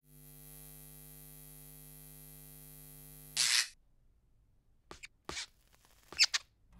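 Electric hum of a neon sign, a faint steady buzz, ending about three and a half seconds in with a short loud fizz as the sign cuts out. A few short soft knocks follow near the end.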